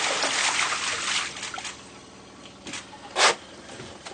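Seawater gushing and spraying up through a broken log transducer through-hull fitting, a loud steady hiss that dies away about a second and a half in as a carrot is rammed into the hole and stops the leak. A brief sharp noise follows near the end.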